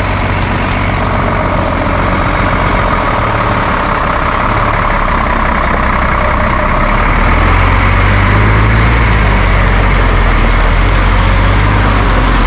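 Tractor diesel engine running steadily close to the microphone, growing a little louder and heavier about seven seconds in.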